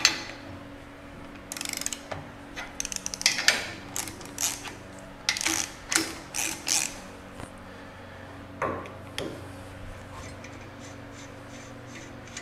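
Ratchet wrench clicking in short bursts as it turns down the bolt of a cylinder-liner clamping fixture, pressing a new liner onto the block deck of a 1939 Caterpillar diesel for a liner-protrusion check. The clicking stops about seven seconds in, with two more strokes shortly after, leaving a faint steady hum.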